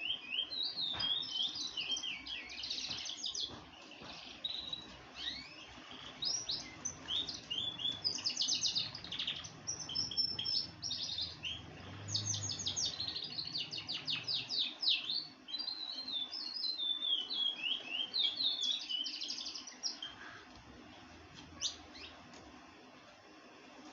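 Songbirds singing a fast run of high chirps, sweeping notes and quick trills, dense for most of the time and thinning out in the last few seconds.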